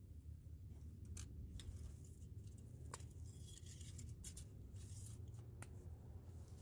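Faint scattered clicks and light handling noises over a low steady hum.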